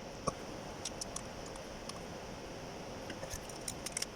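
Scattered light clicks and metallic clinks of hand tools being handled, a few early on and several close together near the end, over a steady background hum.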